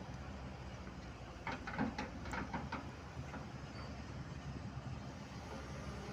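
Excavator's diesel engine running steadily, with a quick run of metallic clanks and knocks about one and a half to three seconds in.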